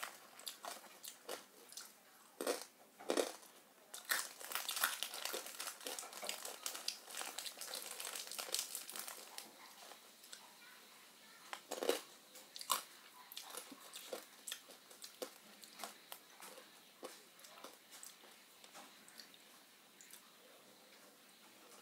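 Close-up crunching and chewing of a crunchy snack. The crackles come thick over the first half and thin out later.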